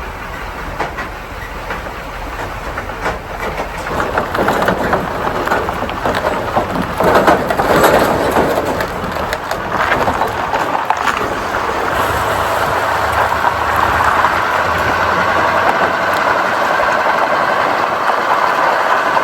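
A vehicle towing a trailer loaded with aluminum airplane fuselages, pulling away and gathering speed. Metal rattles and clanks throughout, over road and engine noise that grows louder and then holds steady.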